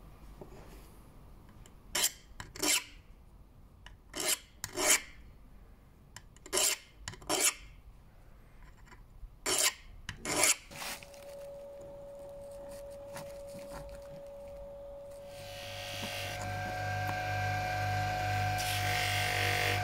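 A small steel screw part rubbed by hand along a flat metal file: eight short rasping strokes in four pairs. Later a bench grinder with a buffing wheel runs, a steady motor hum that grows louder near the end.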